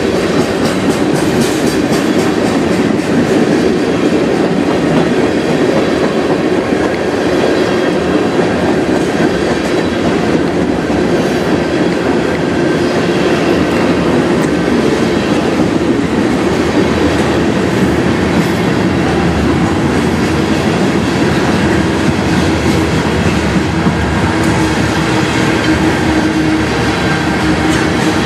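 Freight train of tank cars rolling past close by: a steady, loud noise of steel wheels on rail, with light clicks from the wheels running over the rail joints.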